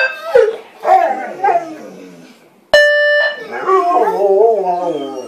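Dogs howling in long, wavering cries, set off by an electronic sound maker that gives a short flat beep-like tone right at the start and again about three seconds in, each tone starting and stopping abruptly.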